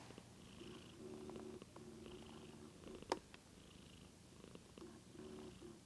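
Domestic cat purring softly, in breath-by-breath cycles with short pauses between. A single short click about three seconds in.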